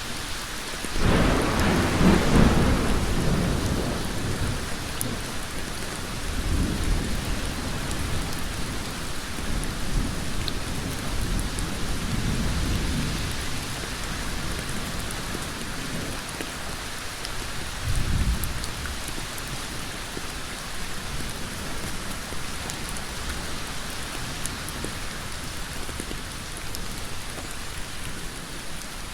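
Heavy rain pouring steadily on a hard surface, with several low rumbles swelling and fading through it, the loudest starting suddenly about a second in and others weaker later on.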